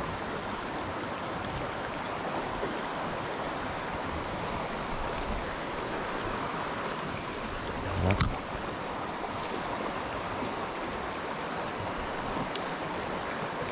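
Small river running steadily over a riffle: a constant rushing of water. A single sharp knock is heard about eight seconds in.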